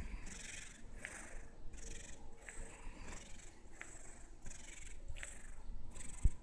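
Domestic cat purring while being stroked, a soft, raspy rhythm that swells and fades with each breath in and out, about two a second.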